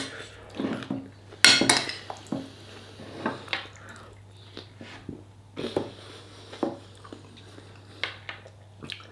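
A metal spoon clinking and scraping against a bowl as food is scooped up, a series of short scattered knocks with the loudest about a second and a half in.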